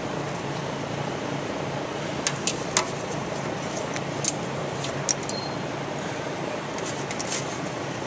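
Scattered sharp clicks and ticks from hands handling a seatbelt strap and its hardware on a dragster's tube frame, a few in the first half and a small cluster near the end, over a steady background hum.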